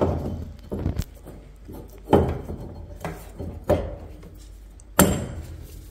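Sharp knocks and clinks of metal parts being handled inside a Chaffoteaux Britony combi boiler as a new plate heat exchanger is seated in place, five in all about a second apart.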